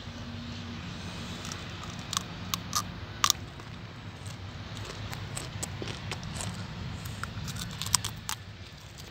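Raw cauliflower being chewed and bitten: scattered crisp crunches and crackles, a few at first and then a quicker run of them a few seconds later.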